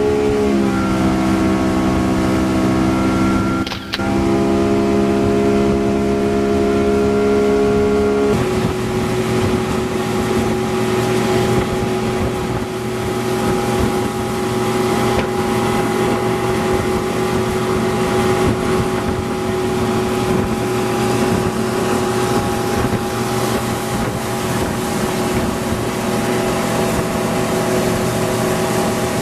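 Mullet boat's engine running steadily at speed, with water and wind noise beneath it. The engine note dips briefly about four seconds in and settles slightly lower a few seconds later.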